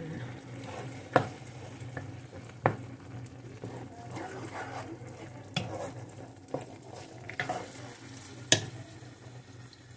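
A metal slotted spoon stirring a thick cream sauce with meat in a nonstick frying pan, knocking against the pan about six times, over a low sizzle from the simmering sauce.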